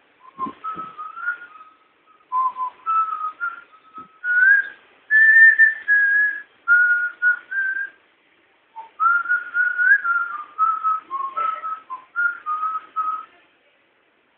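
A person whistling a tune: one clear pitched tone stepping from note to note in two phrases, with a short break about eight seconds in.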